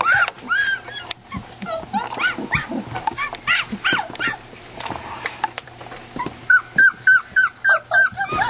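Young puppies whimpering and yipping in short, high, arched cries, with a quick run of louder yelps, about four a second, near the end.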